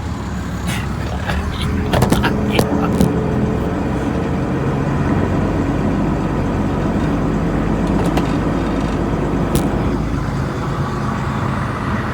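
A vehicle engine running steadily, with a few sharp clicks and knocks about two to three seconds in.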